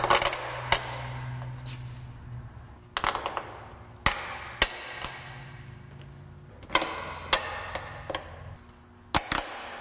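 Plastic windshield side-molding clips on a 2004 Honda Element's windshield pillar being pressed and snapped into place by hand: about a dozen sharp clicks and snaps, some in quick clusters, at irregular intervals.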